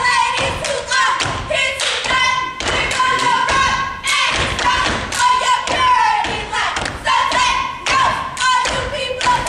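Step team stepping: rhythmic foot stomps on the stage floor and hand claps, with the steppers' voices chanting along between the beats.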